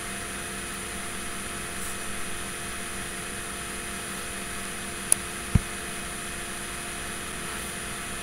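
Steady room hum, fan-like, with faint constant tones, and two brief clicks about five seconds in.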